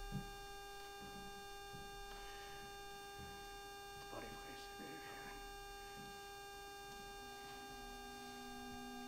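Quiet room tone with a steady electrical hum, broken by a short knock right at the start and faint soft handling sounds about four seconds in.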